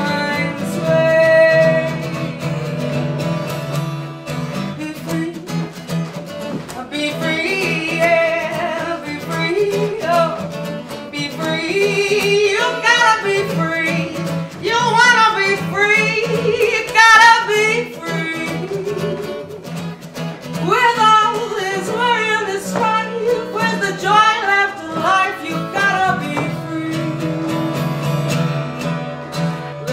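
Live acoustic duo: a woman singing, accompanied by a strummed steel-string acoustic guitar. She holds long notes with a clear vibrato.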